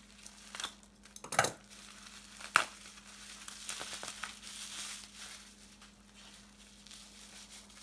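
Plastic bubble wrap crinkling and rustling as a wrapped item is unwrapped by hand, with a few sharp snaps in the first three seconds.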